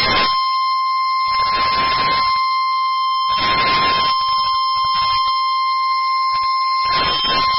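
NOAA Weather Radio warning alarm tone: a steady 1050 Hz tone held for several seconds, the signal that switches on specially built weather-alert receivers. A hiss of radio static comes and goes underneath it.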